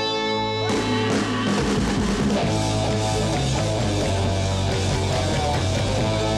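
Rock music with electric guitar: a held chord gives way to the full band with drums about a second in.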